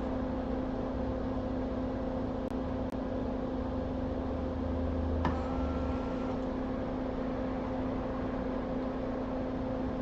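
Steady electrical hum and fan noise from workbench equipment, with a single sharp click a little past halfway.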